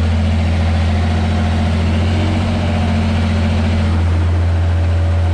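Ursus 1214 tractor's six-cylinder diesel engine running steadily under load while pulling a plough, heard from inside the cab.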